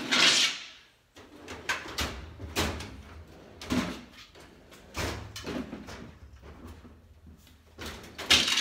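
Hard objects being handled and rummaged through, likely tools and a plastic tool case. There is a loud scraping rustle at the start, several sharp knocks and clunks, and another scraping burst near the end.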